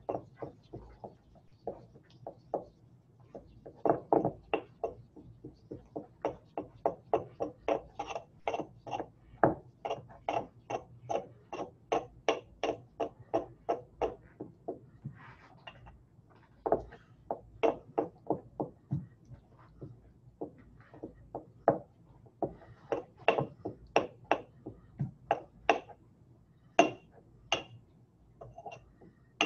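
Pestle working in a mortar, knocking and grinding in quick, even strokes about three a second, with two short pauses: water being mixed into dispersed gum acacia and oil to form an emulsion.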